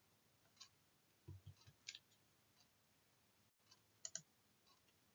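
Near silence: faint room tone with a few soft clicks, roughly one a second, and a low soft bump about a second in.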